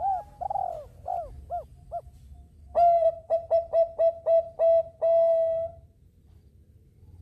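Bangkok-bred zebra dove (perkutut) cooing. First come a few short, falling coos; then, about three seconds in, a louder phrase of rapid staccato coos ends in one long held note.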